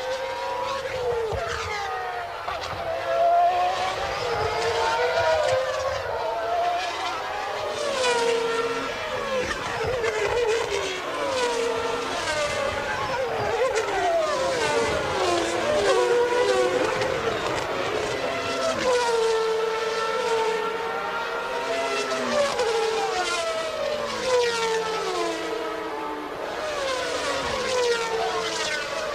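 Several 1992 Formula One cars' high-revving engines running at once. Their notes climb, drop sharply at gear changes and climb again, overlapping as the cars go by.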